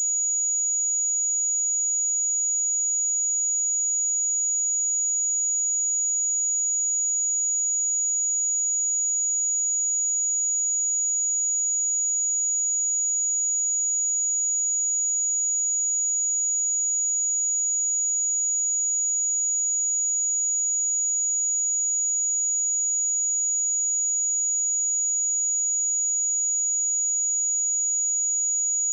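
Pure 6818 Hz sine test tone, a single high-pitched steady whistle held at a constant level.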